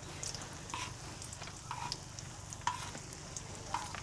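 Egg-coated potato patties shallow-frying in oil on a flat iron tawa: a steady sizzle with a few scattered sharp crackles.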